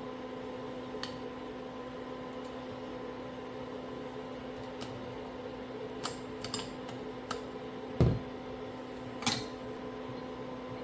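Scattered clicks and clinks of hand tools and metal parts during steering rack reassembly, with one louder knock about eight seconds in, over a steady electrical hum.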